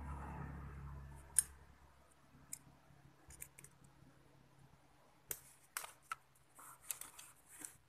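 Scissors snipping a thin strip of aluminium drink-can sheet, cut to shim a loose blender bushing. There is one sharp snip about a second and a half in, a few scattered snips after it, then a quick run of snips and clicks near the end.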